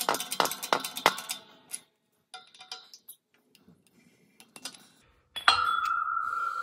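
A press pushes a tapered roller carrier bearing onto a Dana 44 differential carrier through a steel deep socket, with sharp even clicks about three a second for the first second and a half, then a few light knocks. About five seconds in, the steel socket comes off with a sudden metal clang that keeps ringing in a clear steady tone.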